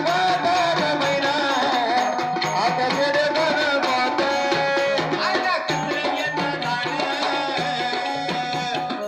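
Live Marathi devotional folk music: a keyboard melody over a steady hand-drum beat.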